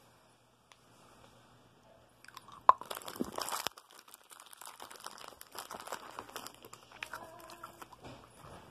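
Anpanman Mini Ramune hard candy crunched and chewed close to the microphone. After about two quiet seconds there is a sharp crack and a burst of crunching, then lighter crunches and some crinkling of plastic wrapper on and off.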